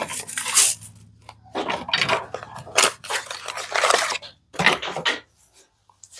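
Irregular clatter and sharp knocks of hard plastic being handled as plugs and a plug box are dealt with. A low steady hum runs underneath for the first four seconds or so and then stops.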